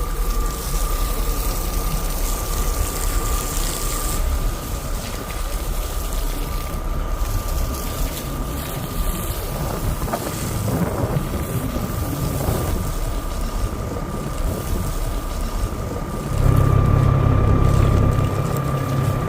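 Boat engine running steadily, with a thin high whine over a low rumble and wind buffeting the microphone; the engine grows louder for about two seconds near the end.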